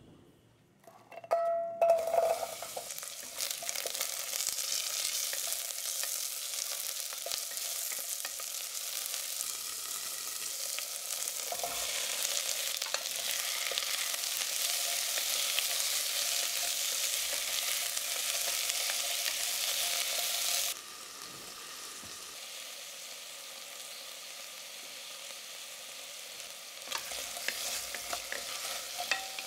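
Chopped onion and bell pepper sizzling in hot olive oil in a stainless steel saucepan, stirred with a wooden spoon. The sizzle starts about two seconds in, drops to a quieter hiss about two-thirds of the way through, and short knocks of the spoon against the pan come near the end.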